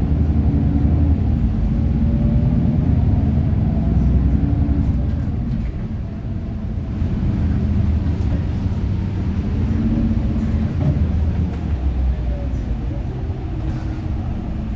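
Inside a city bus while it drives: steady low engine and road rumble heard from the cabin, easing briefly about six seconds in.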